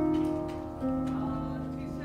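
Background music of sustained piano chords, with a new chord coming in a little under a second in.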